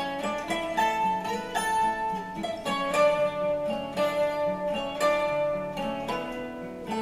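Instrumental background music: a melody of short notes, some changing several times a second.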